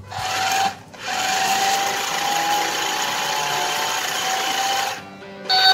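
Small electric motor and gears of a toy remote-control car whirring as it drives, with a steady whine: a short burst, then after a brief pause a longer run of about four seconds.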